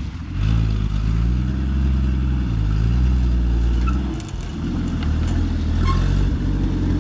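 Jeep CJ5 engine pulling under load as the Jeep climbs out of a creek bed up a slope, engine speed rising and falling. It eases off briefly about four seconds in, then pulls again.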